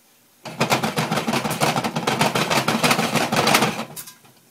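Popcorn kernels rattling and sizzling in hot oil in a lidded steel pot as the pot is shaken on the stove. It is a dense run of clicks that starts about half a second in and stops shortly before the end.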